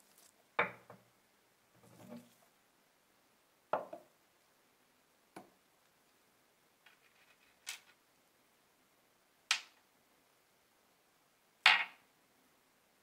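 Small rusty metal lighter parts being handled and set down one by one on a wooden tabletop: a series of separate light clicks and knocks, about seven in all, with the sharpest one near the end.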